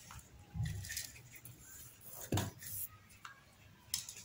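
Light handling sounds on a workbench as a spool of solder wire and a length of hook-up wire are picked up and moved, with a single knock a little over two seconds in and a couple of small clicks near the end.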